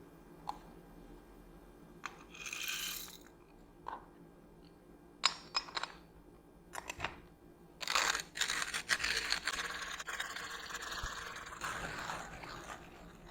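Hand coffee grinder crunching coffee beans at an espresso grind. A few scattered clicks and short rattles come first, then steady crackly grinding for about five seconds from around eight seconds in.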